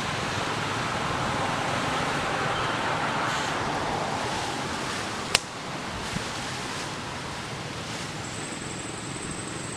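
Steady hiss of outdoor background noise, with one sharp click about five seconds in and a thin, high, steady tone that starts near the end.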